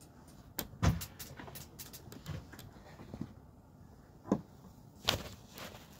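Handling noise on the phone's microphone: scattered light clicks and knocks, with a dull thump about a second in and sharper knocks after about four and five seconds.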